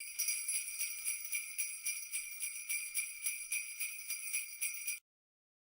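Sleigh bells shaken in a steady rhythm, about four shakes a second, cutting off suddenly about five seconds in.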